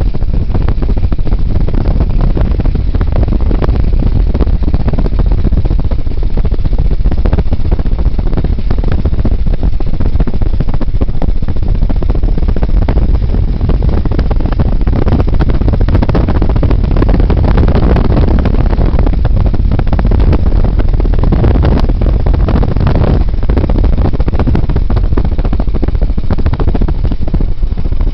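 Steady, loud wind buffeting and road noise of a car travelling at over 70 mph, heaviest in the low range.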